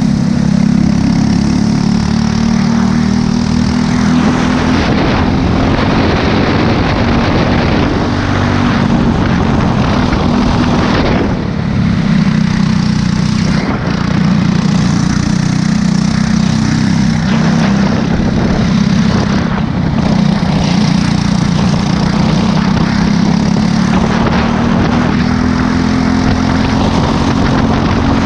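Briggs & Stratton LO206 single-cylinder four-stroke kart engine running hard on track, heard from the kart itself. The engine note holds fairly steady, with brief dips a few times, and climbs again near the end.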